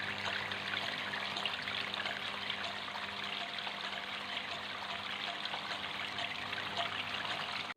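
Water trickling steadily down a small homemade styrofoam waterfall, with a low steady hum underneath.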